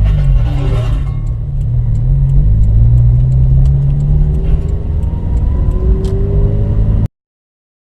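Engine of a Toyota 86 converted with an HKS 4135 turbo kit, running with revs rising and falling. A light, regular high ticking comes through about three times a second, and a faint rising whine is heard midway. This is the abnormal noise the owner is asking to have identified; the sound cuts off suddenly near the end.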